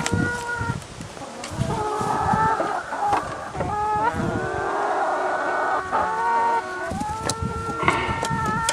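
Several chickens calling over one another, a rooster crowing among their drawn-out clucks.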